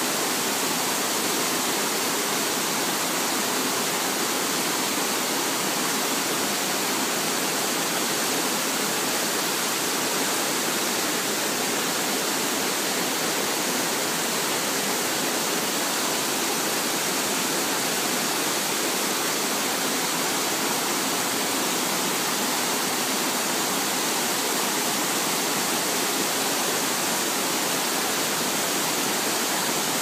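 Fast-flowing mountain stream rushing and splashing over rocks and down a small cascade: a steady hiss of water with little deep rumble.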